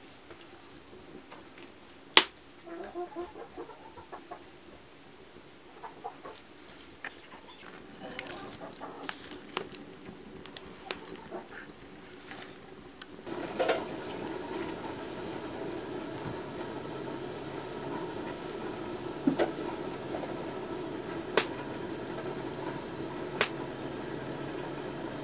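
Sticks of firewood knocking and clicking as they are pushed into a wood fire burning under a cooking pot, with a sharp crack about two seconds in. A little after halfway a steady hiss sets in, with a few sharp pops from the burning wood near the end.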